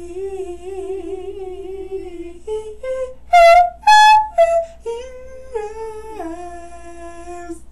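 A woman singing a wordless tune with a wavering held note, climbing to two loud high notes about three and a half seconds in, then stepping back down to a low held note.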